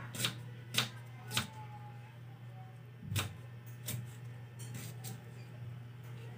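Kitchen knife chopping ginger on a thick wooden chopping block: three sharp knocks about half a second apart, then after a short pause a few more, the later ones lighter. A steady low hum runs underneath.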